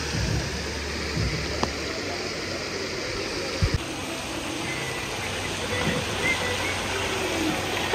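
Steady rushing and splashing of falling water from water-park splash features. A higher hiss in it drops away a little after halfway through.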